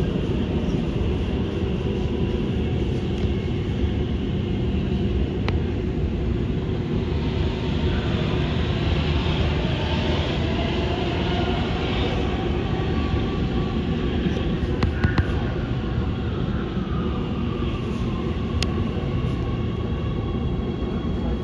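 Oslo Metro MX3000 train running, heard from inside the carriage: a steady rumble of wheels on the track. Around the middle a train passing the other way adds a rush of noise. In the second half a faint whine falls in pitch as the train slows for a station.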